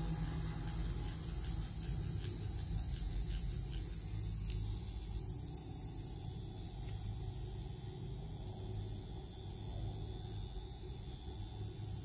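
Permanent-makeup machine pen running with a steady low hum, with a faint rapid ticking over roughly the first four seconds.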